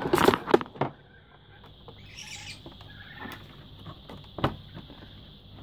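Handling noise from an opened induction cooktop: a quick cluster of sharp clicks and knocks in the first second as the glass top and parts inside are moved, then a short rustle about two seconds in and single sharp clicks near three and four and a half seconds.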